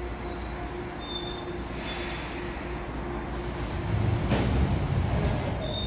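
Seoul Line 3 GEC electric train braking to a stop at the platform. Short high-pitched wheel squeals come over a steady running tone, and a louder low rumble swells about four seconds in as it comes to rest.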